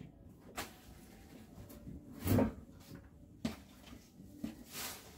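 A few separate knocks and scrapes of garden things being handled and moved, the loudest a dull thud about two and a half seconds in.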